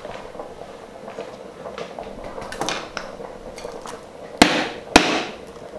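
A plastic jar lid being handled on a countertop, with soft clicks and scrapes, then two sharp knocks about half a second apart near the end as the upturned lid is knocked down to release a steamed sago papad.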